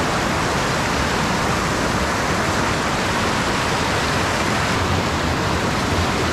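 Rushing whitewater of a mountain stream running high after heavy rain, close by and steady.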